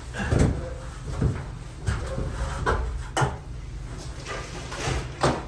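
A handful of separate knocks and clunks as things are handled and set down, about six over a few seconds, the sharpest a little after the third second and just after the fifth.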